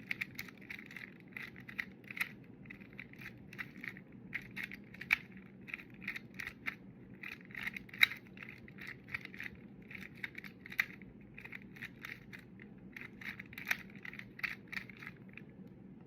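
A 2x2 Rubik's cube being turned fast with finger tricks, running the R U2 R' U' R U' R' algorithm. Its plastic layers snap round in an uneven stream of quick clicks and rattles, several a second.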